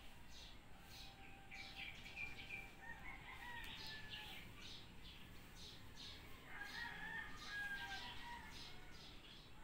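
Faint birds: short chirps repeating two to three times a second, with two longer, held calls about three and seven seconds in.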